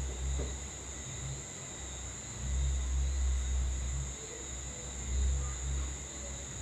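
Quiet background rumble that swells twice and fades, under a steady high-pitched whine.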